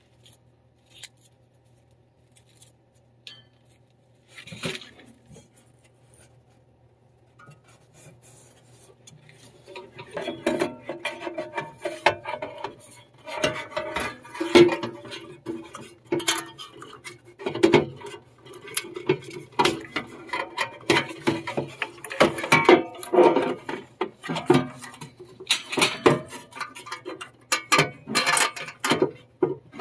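Sheet-metal housing of a replacement furnace inducer fan assembly being handled and fitted against the furnace's vent panel: metal clattering, knocking and scraping. A few scattered clicks at first, then busy, irregular clatter from about a third of the way in.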